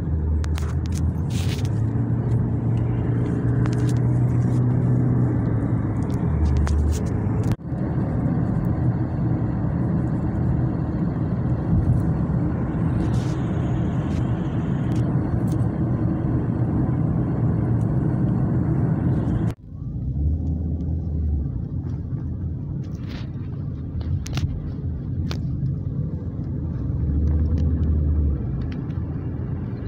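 Steady road and engine rumble inside a moving taxi's cabin. The rumble drops out sharply for an instant twice, about eight and twenty seconds in.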